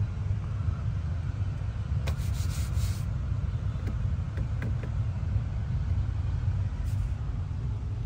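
Steady low rumble of a car on the move, with a short rubbing noise about two seconds in.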